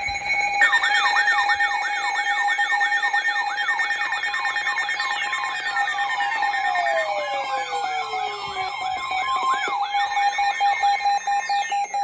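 Electronic weather-alert alarms sounding together: a steady tone under a fast rising-and-falling warble that repeats about twice a second, with several long falling sweeps over it from about five seconds in. They cut off just before the end.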